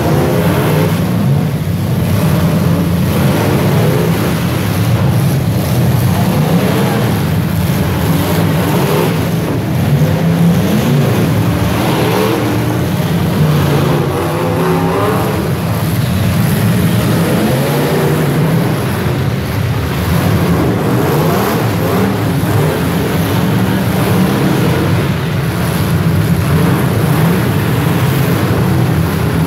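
Several demolition derby cars' engines running loudly together, revving up and down as the cars drive and ram each other.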